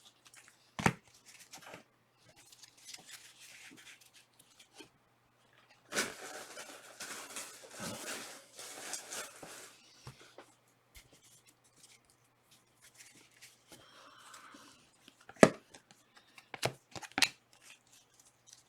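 A trading-card pack's foil wrapper being torn open for about four seconds, with a few sharp clicks and taps before and after.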